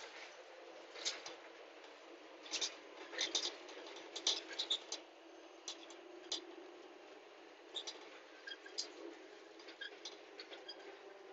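Faint steady hum inside a moving vehicle, with scattered small clicks and scratches.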